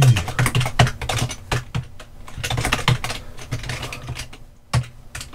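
Typing on a computer keyboard: quick, irregular keystrokes, with a short pause about four and a half seconds in, followed by one sharper keystroke.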